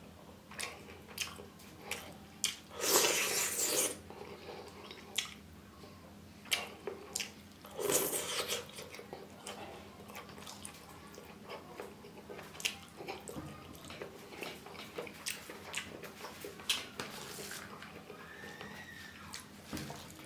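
Eating by hand: many short wet clicks and squelches of fingers mixing and picking up rice and curry on a steel plate, along with chewing, and two longer, louder wet mouth noises about three and eight seconds in.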